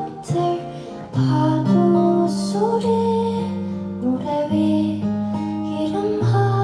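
Live music: a ballad with strummed acoustic guitar over long held lower notes, the chords changing every second or so.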